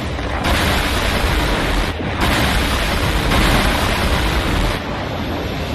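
Loud rushing noise over a deep rumble, starting about half a second in, breaking off briefly near the middle and stopping about a second before the end.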